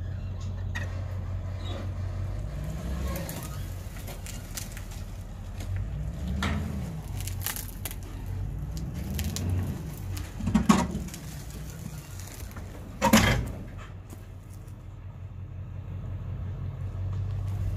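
An engine running low and steady, rising and falling in pitch three times as it is revved, with two sharp loud knocks about two and a half seconds apart in the second half.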